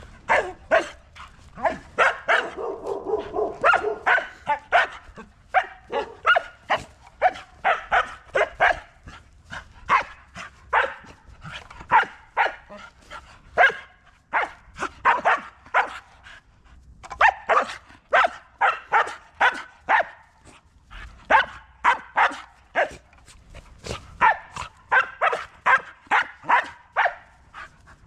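A dog barking at a waved broom in play, in quick runs of short sharp barks about two to three a second, with one longer drawn-out sound about three seconds in.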